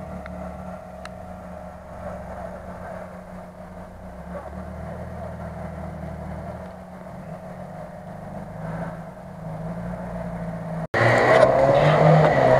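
A UAZ-469 off-road vehicle's engine running with a steady drone. About eleven seconds in, the sound cuts abruptly to the same kind of engine much louder, revving with its pitch rising and falling.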